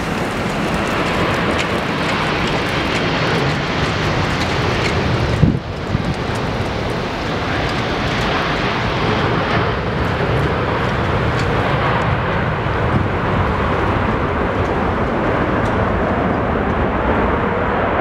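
Jet engines of a Boeing 777-200 on final approach and landing, a steady loud rush of engine noise as the airliner passes and touches down on the runway. There is a single sharp thump about five and a half seconds in, and the hiss fades in the upper range near the end as the aircraft rolls away.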